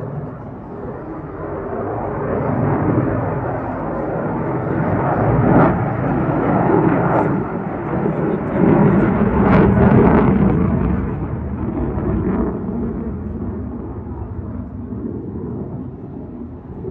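Fighter jet's engines in display flight. The rumble builds, is loudest in the middle with a few sharp crackles, then fades as the jet moves away.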